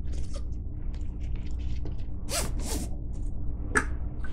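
Thick nylon sling webbing being handled and pulled through its adjusters, making several short scraping swishes, the strongest just after two seconds in and near the end.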